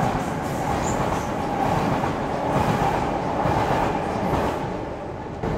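Passenger train running along the track, a steady rumbling rail noise that fades over the last second or so as it draws away.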